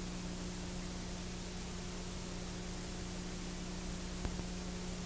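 Steady recording hiss with a low electrical hum, the blank noise floor of an old transferred soundtrack, with a single faint click a little over four seconds in.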